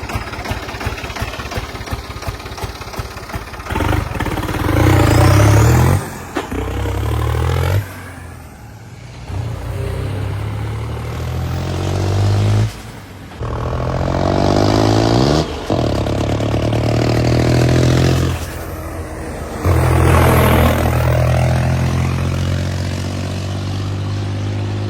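New Holland 3630 Special tractor's diesel engine, its fuel injection pump freshly reworked: a ticking clatter at first, then revving hard several times, the pitch climbing in each pull and dropping off suddenly between them as it is driven up through the gears.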